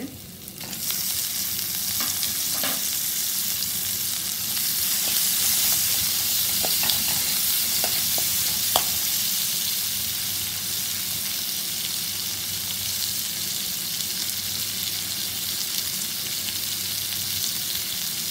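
Onion, dals and spices sizzling in hot oil in a metal kadai. The sizzle jumps up sharply just under a second in and then runs steadily. A few sharp clinks from stirring, the loudest near the middle.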